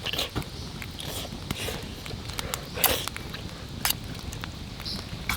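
Wood campfire crackling: irregular sharp snaps and pops over a steady low hiss.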